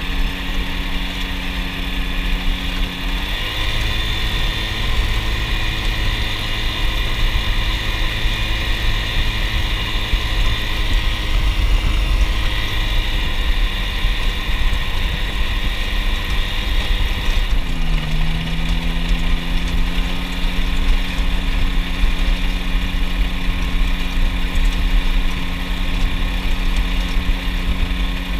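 Ultralight aircraft's engine and propeller running at low throttle while taxiing. The engine note steps up a few seconds in and drops back a little past halfway.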